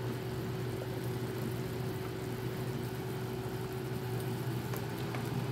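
Steady low hum, like a fan or motor running, over a large pot of soup boiling on a gas stove, with a faint clink of a spoon against the pot near the end.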